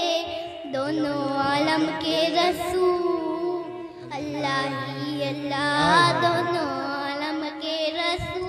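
A boy's voice singing a naat (devotional Urdu poem) into a microphone, drawing out long wavering melodic phrases with short breaths between them.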